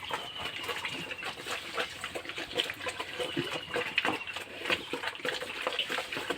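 Pigs eating wet feed, with a busy run of short smacks, slurps and chomps as they jostle at the trough.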